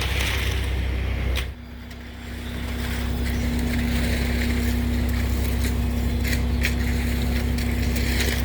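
A steady low engine drone. About one and a half seconds in the sound briefly drops, then a steady humming tone joins it, with a few light clicks over the top.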